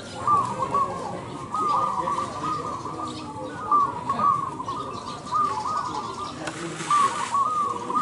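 Several caged zebra doves (perkutut) cooing at once, their short rolling coos overlapping and repeating without pause.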